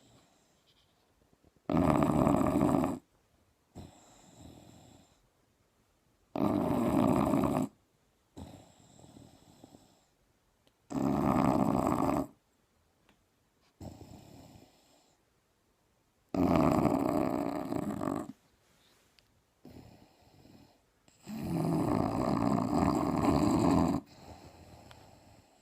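English Bulldog snoring loud: five long, rasping snores about every four and a half seconds, each followed by a fainter, shorter breath.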